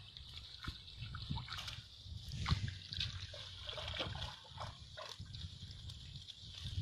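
Water trickling and splashing as a wet mesh net is lifted and handled in shallow muddy water, in small irregular drips and splashes.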